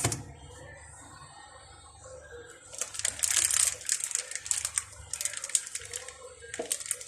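Plastic food packets and bags crinkling and rustling in quick irregular bursts as they are handled, starting about three seconds in after a quieter stretch.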